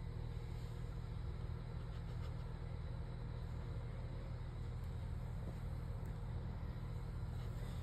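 A steady low rumble, with a few faint ticks over it.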